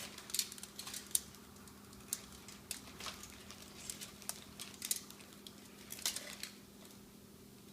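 Scattered light taps and scrapes, irregular and faint, from a small child adding flour to pizza dough, over a steady low hum.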